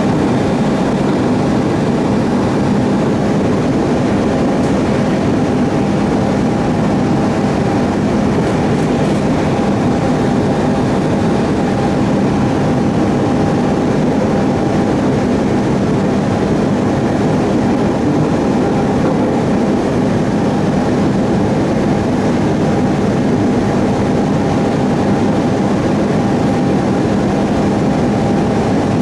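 Steady running noise inside the cabin of a JR East 701 series electric train travelling between stations: an even rumble of the wheels on the rails with a constant low hum through it.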